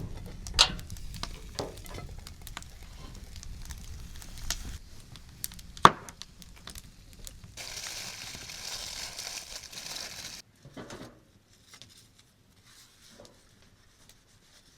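Food sizzling in a pan over a campfire, with scattered sharp clicks and knocks. A steady hiss starts suddenly about eight seconds in, lasts a few seconds, then cuts off to near silence.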